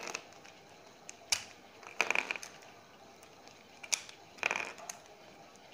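Plastic pieces of a 3x3 Rubik's cube clicking and clattering as they are pulled out by hand, in a few short bursts of clicks about a second or two apart.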